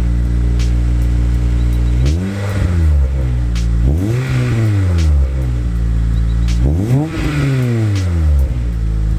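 Acura RSX's 2.0-litre K20 four-cylinder engine breathing through a Yonaka catback exhaust and a test pipe in place of the catalytic converter. It idles steadily and is blipped three times, each rev rising and falling back to idle.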